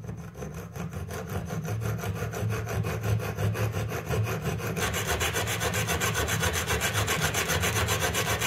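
Small hand hacksaw sawing through a metal front-sight blank held in a mitre box, cutting off the excess height of the sight. Quick, even back-and-forth strokes that grow louder about five seconds in.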